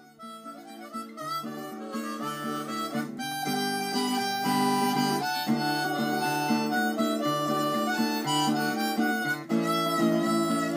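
Outro music: a harmonica melody over guitar, fading in over the first few seconds.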